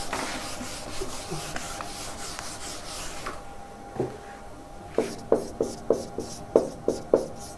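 A board being wiped with a steady rubbing for about three seconds, then a quick run of short writing strokes on the board, several a second.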